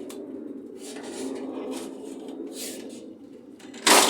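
Sheet-metal outer cover of a microwave oven being worked loose and lifted off, with light scrapes and clicks, then one loud metallic clank near the end, over a steady low hum.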